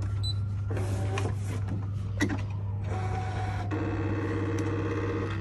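Brother ScanNCut SDX1200 cutting machine starting a cut: its motors whir and whine as the mat feeds and the blade carriage moves, over a steady low hum. A few short knocks come in the first half, and from about three seconds in the motor whine takes a new pitch, then turns into a warbling lower tone.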